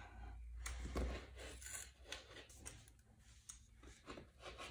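Rotary cutter rolling through a double layer of stretch fabric on a cutting mat, heard faintly in short, irregular strokes.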